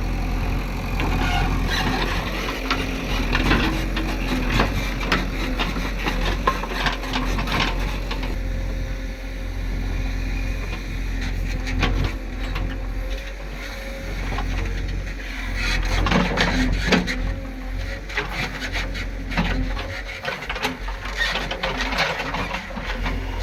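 JCB backhoe loader's diesel engine running steadily, with repeated scraping and knocking from the machine at work.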